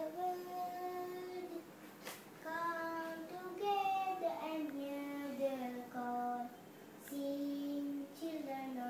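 A young girl singing unaccompanied, a slow melody of held notes that step up and down.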